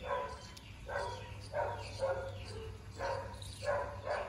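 Dog breathing hard through its nose with its mouth clamped shut on a mouse, giving a short nasal huff about every three-quarters of a second.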